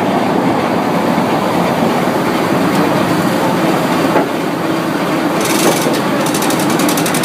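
Sawmill machinery running steadily with a dense mechanical rumble and clatter, a sharp knock about four seconds in.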